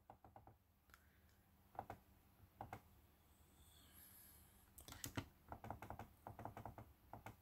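Faint clicking of laptop keys: a few single clicks, then a quicker run of clicks from about five seconds in as the PDF pages are flipped.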